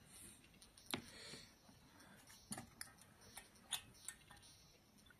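Several faint, irregular clicks and light taps from cans and small parts being handled on a desk, the loudest about a second in and again past the middle.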